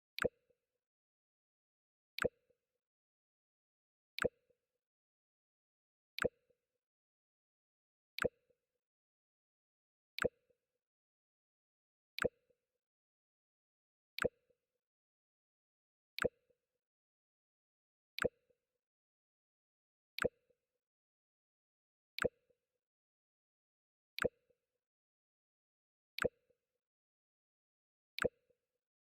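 Mac OS X 'Jump' system alert sound played over and over, about every two seconds: each time a short sharp click followed by a brief low tone, with silence in between.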